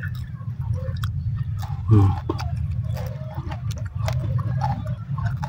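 Close-up chewing of raw siling labuyo chilies, with many small wet clicks and crunches of the mouth, over a steady low hum. About two seconds in, the eater lets out one short, loud vocal groan.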